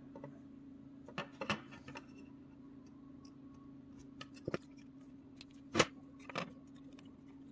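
A handful of light clicks and scratches as a wire is pushed into the power screw terminal of an Arduino CNC shield and the terminal screw is turned with a small screwdriver, over a faint steady hum.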